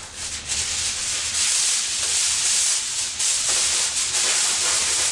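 Aluminium foil crinkling and rustling as a sheet is handled to cover a pie dish, a continuous crackly rustle with small sharp crackles through it.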